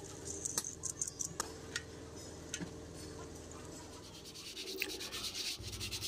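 Hands washing a tapered roller bearing in a basin of washing liquid: splashes and drips with metal clicks early on, then a steady scratchy rubbing from about four and a half seconds in as the bearing is scrubbed with a cloth.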